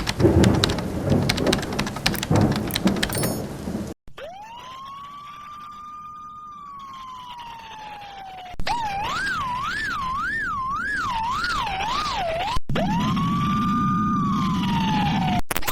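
Edited fire truck siren sound-effect variations cut one into the next. First comes a loud crackling, clicking burst. Then a siren winds up, holds and slowly falls. Then a fast wail swings up and down about twice a second, and a last wind-up and fall plays over a low rumble.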